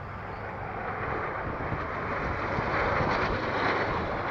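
Formation of display aircraft flying past, a rushing engine noise that builds to its loudest about three seconds in and then eases off.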